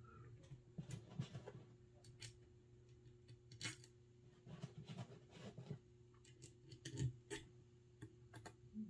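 Scattered light clicks and taps of small parts being handled during reassembly of a semi-automatic Marauder air rifle, the loudest about seven seconds in, over a faint steady hum.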